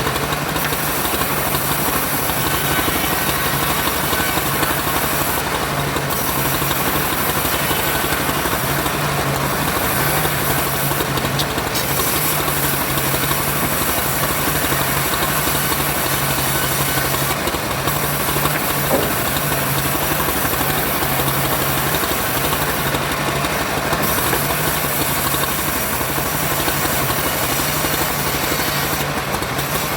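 Engine running steadily at an even speed, with a hiss of noise over it.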